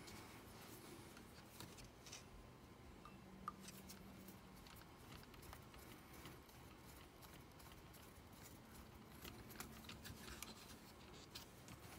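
Near silence with faint, scattered clicks and taps as a long hex driver and small metal parts are worked on an RC crawler's brass C-hub.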